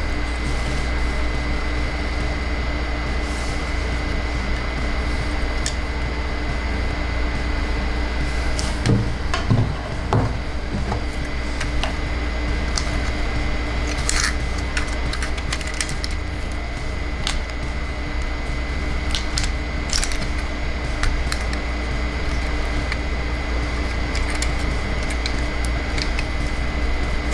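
Plastic toy parts being handled and snapped into place, with a few sharp clicks, most of them about a third of the way in, over a steady electrical hum.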